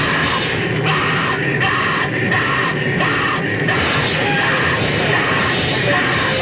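Lo-fi, distorted demo recording of extreme metal/grindcore: dense, noisy distorted guitars and drums with a steady pulse, likely with shouted vocals.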